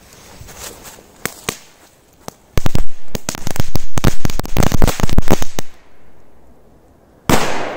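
Korsar-4 firecracker with a crackle effect going off: after a few faint clicks as the fuse burns, about three seconds of dense, rapid crackling pops, then near the end one loud bang that rings out.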